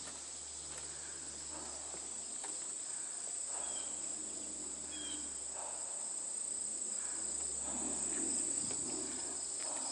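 Steady high-pitched chorus of crickets and other insects, with soft rustling footsteps through brush and undergrowth every second or two.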